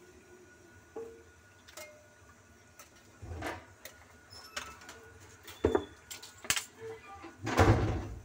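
Knocks, clicks and scrapes of handling a white plastic bucket under a sink drain, with a louder half-second clatter near the end.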